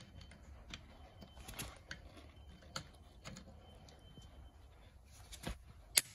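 HEYNER torque wrench set to 150 Nm tightening a van's wheel bolt: a few light scattered clicks from the ratchet head and socket, then one sharp, loud click about six seconds in as the wrench reaches its set torque and releases.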